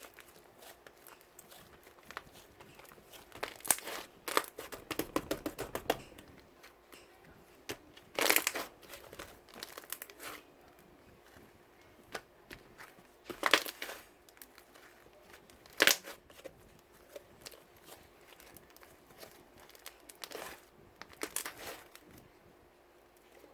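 Irregular crinkling and rustling handling noises, a few sharp bursts several seconds apart, over a faint steady hum.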